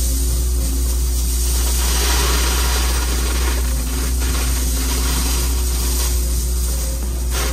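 Diesel engine of heavy equipment running steadily, heard from inside the cab as a deep drone. A rush of crushed stone pours from an excavator bucket, loudest about two seconds in and again near the end.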